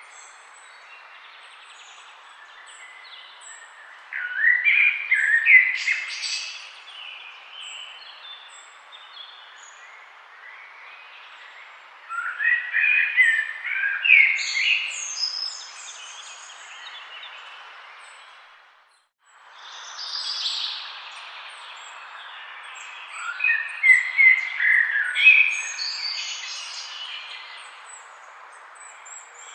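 Forest songbirds singing in bursts of quick chirping phrases over a steady background hiss. The sound fades out to silence for a moment about two-thirds of the way through, then returns.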